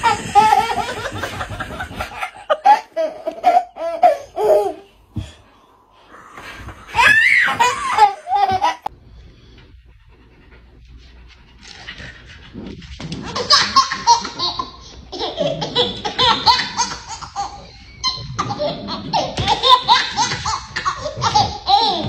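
A baby laughing hysterically in repeated belly laughs, with a lull about ten seconds in, then laughing almost without a break through the second half.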